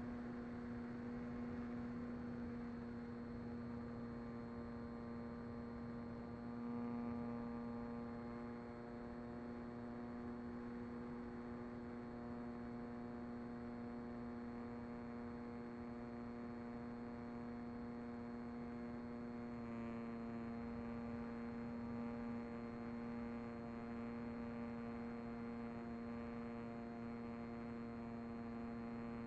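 Electric motor and pusher propeller of a Mini Talon FPV plane droning at a steady pitch in cruise, heard through the onboard camera, over a hiss of airflow. The pitch and tone shift slightly about twenty seconds in.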